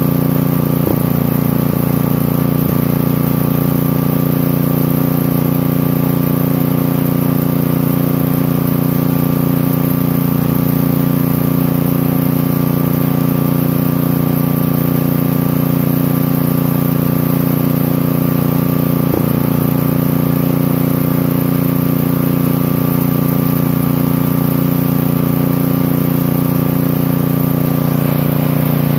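Cast-iron Briggs & Stratton single-cylinder flathead engine running steadily at an even speed, on aviation gasoline with its ignition timing retarded to about 25° before top dead centre.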